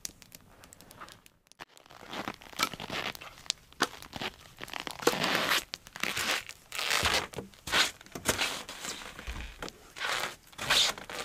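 Footsteps crunching in dry, frozen snow, uneven and irregular, starting about two seconds in and growing louder and denser after the middle.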